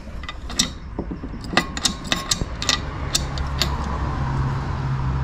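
Sharp clicks and taps of metal parts being handled, as a billet alternator adjuster bracket is fitted against a GM alternator's cast aluminium housing: a dozen or so irregular clicks over the first few seconds. A low steady hum comes in about three seconds in.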